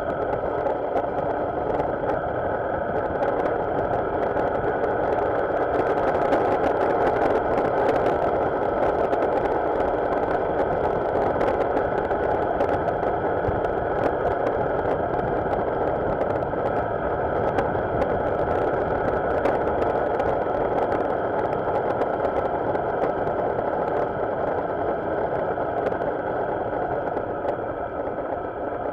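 Motorcycle engine running steadily, its level almost unchanged throughout.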